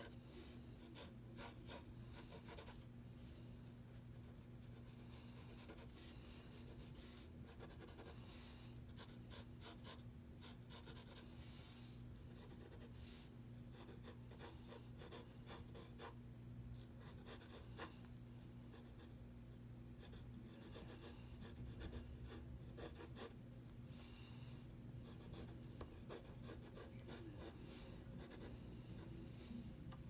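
Graphite pencil scratching across drawing paper in short, irregular sketching strokes.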